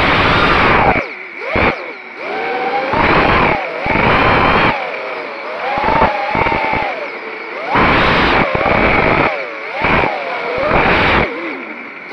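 FPV quadcopter's brushless motors and propellers whining, the pitch rising and falling as the throttle is punched and eased in about half a dozen surges. The sound is heard through the onboard camera's microphone, with wind rush in each burst and a steady thin high tone underneath.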